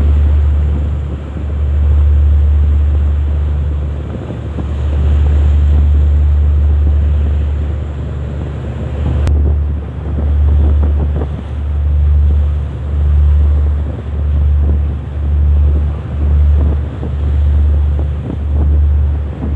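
Wind buffeting the microphone in deep rumbling gusts, pulsing about once a second in the second half, over a fainter steady wash of noise. A single faint click about nine seconds in.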